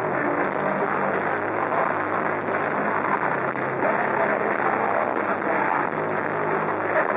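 Metal band playing live at full volume: heavily distorted guitars, bass and drums in one dense wall of sound, with a cymbal crash roughly every second and a half.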